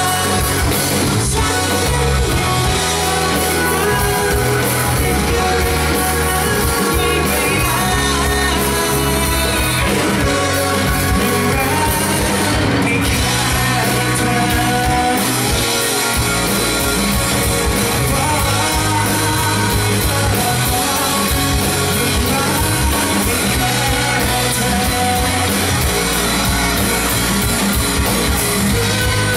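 Live pop-rock band playing a song: a male lead vocal over electric bass, electric guitar, drum kit and a Nord electric keyboard, amplified through a small stage PA.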